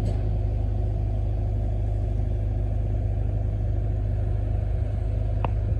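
A motor vehicle's engine idling, a steady low rumble, with a single short click near the end.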